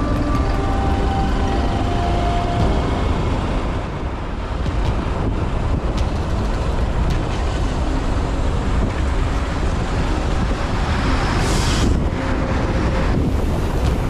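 Wind rushing over the microphone and a steady low rumble from riding along a rough unsealed road, with background music fading out in the first few seconds. Near the end there are two short, louder hissing rushes.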